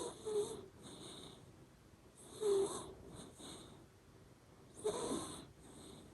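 Shiba Inu snoring in its sleep, its nose giving a whistling 'poo-poo' with each breath. Three stronger whistles come about two and a half seconds apart, with fainter ones between.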